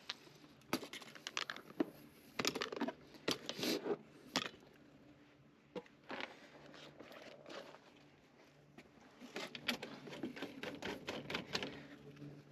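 Irregular scrapes, clicks and rustling of things being handled, coming in clusters with quieter gaps between.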